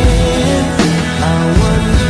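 A woman singing a slow rock song, accompanying herself on a strummed nylon-string classical guitar.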